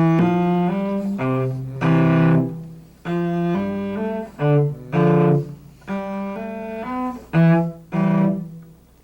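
Cello playing a major scale in thirds as double stops, two bowed notes sounding together and moving step by step in short phrases.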